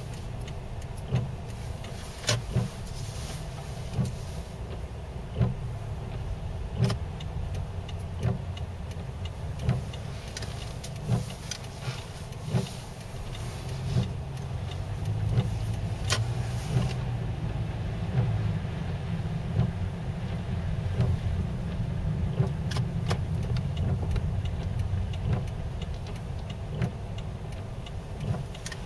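Inside a car, steady low engine and tyre noise while the windshield wipers sweep, with a knock from the wipers about every one and a half seconds.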